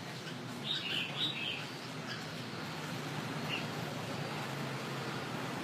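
Red-whiskered bulbul singing a short, quick warbled phrase about a second in, followed by a couple of faint single notes, over a steady low background hum.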